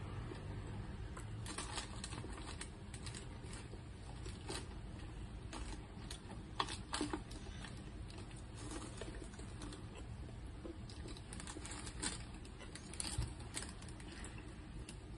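Clear plastic bag and brown paper food wrapping crinkling and rustling in irregular small crackles as food is picked out of it by hand, with a few louder crackles around the middle and near the end, over a low steady hum.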